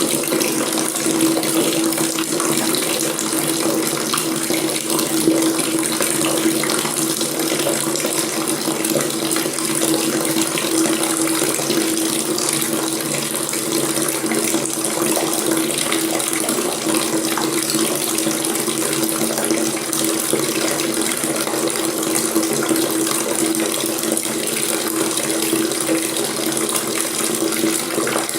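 Water tap running steadily into a sink, an even splashing flow with a low steady hum in it.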